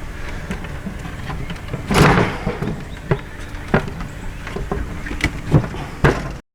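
Knocks and a clatter of wooden chicken-coop parts being handled and fitted during assembly, over a steady low rumble. The largest clatter comes about two seconds in, followed by several single knocks, and the sound cuts off suddenly near the end.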